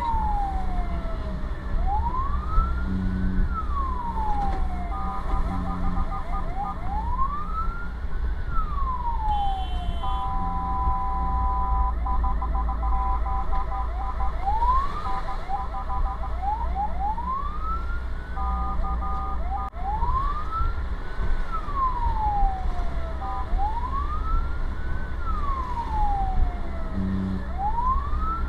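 Fire truck's electronic siren wailing, rising and falling about every three to four seconds, heard from inside the cab. It is broken several times by steady multi-tone horn blasts, over the truck's engine and road noise.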